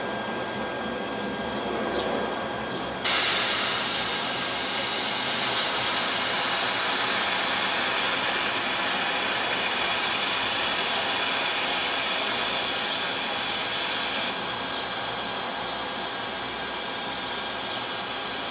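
A steady rushing noise. About three seconds in, a louder hiss cuts in abruptly, holds for about eleven seconds and stops just as abruptly.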